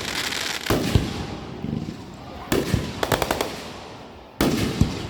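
Fireworks going off in three volleys of sharp bangs and rapid crackling pops: a loud bang about a second in, a quick string of cracks about two and a half seconds in, and another just before the end. Each volley trails off in a fading rumble.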